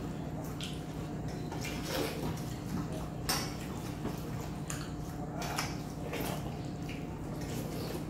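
Fingers mixing dal and rice on stainless steel plates, with short scrapes and taps of fingers on the metal and wet squishing of the food, along with chewing. A steady low hum runs underneath.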